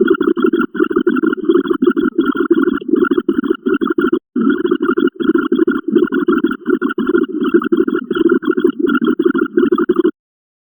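A rapid string of short, identical sound-effect pulses, about three a second, each counting a step of the binary count. There is a brief break about four seconds in, and the pulses stop shortly before the end.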